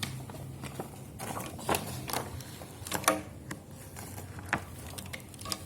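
Scattered light clicks and taps from a plastic transforming toy being handled, a few sharper knocks about three seconds in.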